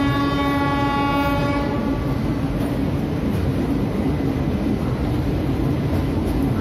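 A locomotive horn holds one steady note that stops about two seconds in, over the steady rumble and rattle of an Indian Railways passenger coach rolling into a station.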